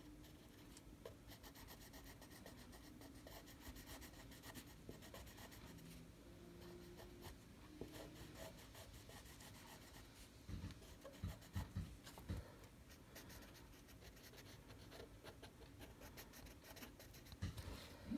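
Felt-tip marker scratching and rubbing on paper in many short strokes, faint, as an area is filled in with ink. A few soft bumps come about two-thirds of the way through and again near the end.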